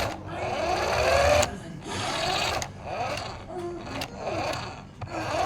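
Small electric motor of an RC car whining, its pitch rising and falling in repeated bursts as it speeds up and slows.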